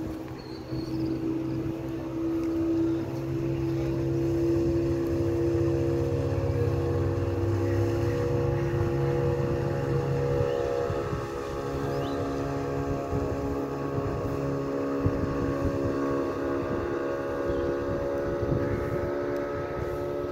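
A small motorboat's engine running steadily, a hum with a low rumble under it. Its pitch shifts slightly about halfway through.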